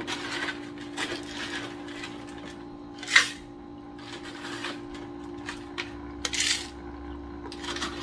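Nugget ice being scooped by hand from a countertop ice maker's basket and dropped into a plastic tumbler: irregular crunching and rattling, with a louder clatter about three seconds in and again about six and a half seconds in. A steady low hum runs underneath.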